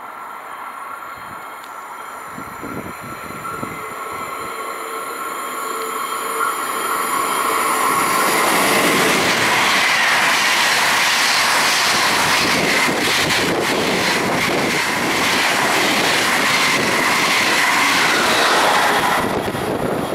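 A fast passenger train passing through the station. The rumble builds over several seconds to a loud, steady rush of wheels on rail with clattering over the rail joints, then falls away near the end.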